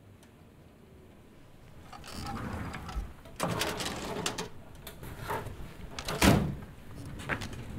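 Handling sounds: rustling and a series of knocks and clicks, with the loudest knock about six seconds in.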